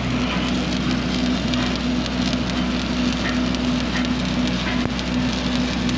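Shielded metal arc (stick) welding arc crackling and sizzling steadily as a flat-position bead is run, with a steady low machine hum underneath.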